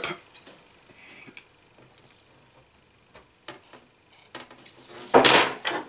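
Scattered light taps and clicks of a steel ruler and a strip of polyester filter film being handled and set down on a wooden tabletop. A loud, brief rush of noise follows about five seconds in.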